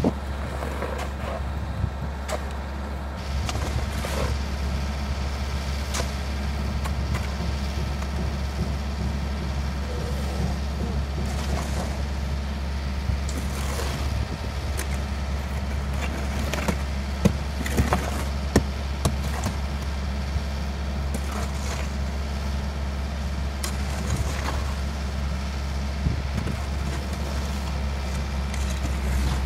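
Kobelco SK50 mini excavator's diesel engine running steadily, with frequent short clanks and knocks from the machine at work.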